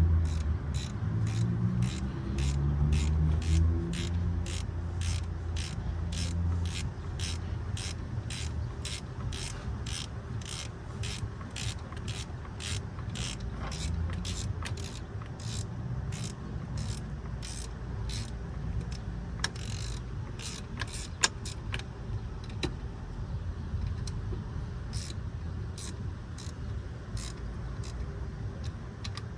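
Ratchet wrench clicking steadily, about two clicks a second, as a bolt is turned; the clicks become less regular after about 22 seconds.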